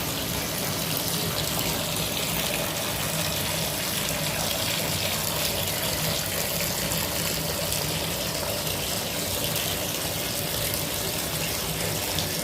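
Water running steadily from a tap that is turned on.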